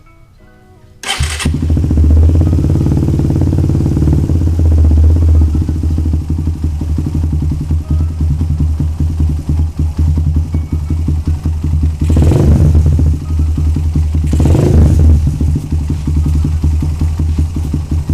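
Suzuki Satria FU's single-cylinder four-stroke engine through a Lone Rider HE CMMS 30 cm racing exhaust, starting about a second in and then idling loudly, with two short throttle blips about two seconds apart near the end.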